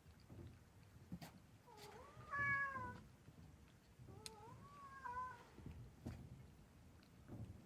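Kitten meowing twice, a rising-and-falling call about two seconds in and a softer one about four seconds in, with a few faint clicks between.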